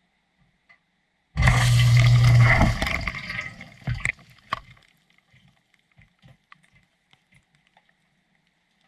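A sudden rush of water with a low steady hum, starting about a second and a half in and dying away after about three seconds, followed by scattered drips and small clicks.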